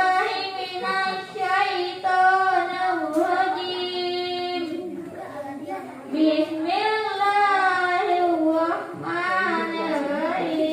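A child's solo voice singing into a microphone, holding long notes that bend and waver in pitch, with a short pause about five seconds in.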